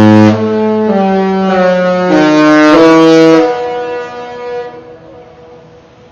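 The Disney Magic's musical ship's horn sounding a short tune of about five held notes, loud and full of overtones, then dying away over a second or so.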